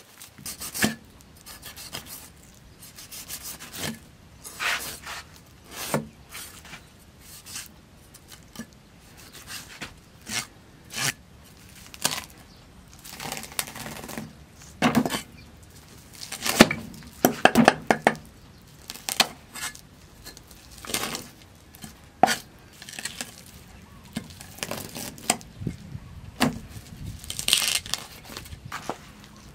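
Cleaver scraping scales off a giant snakehead fish on a wooden chopping board, in many short, irregular strokes.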